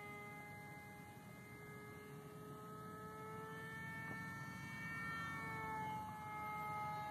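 Motor and propeller of a foam-board RC F/A-18 model plane flying overhead: a steady whine whose pitch drifts slowly up and down, getting louder toward the end as the plane comes closer.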